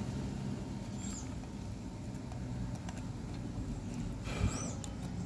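Steady low hum with a few faint small clicks of handling, and two short high chirps, one about a second in and one near the end.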